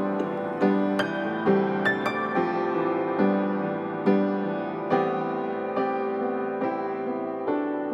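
Slow background music on a keyboard, a new note or chord struck about every second.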